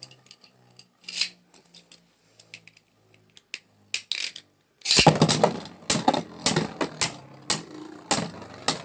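Beyblade spinning tops battling in a plastic stadium: scattered light clicks at first, then from about five seconds in a rapid clatter as the tops strike each other and the stadium walls.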